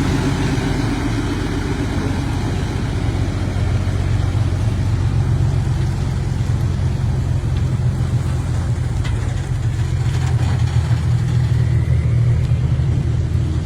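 Heavy vehicle engine, truck or excavator, running steadily with a low hum, getting a little louder near the end.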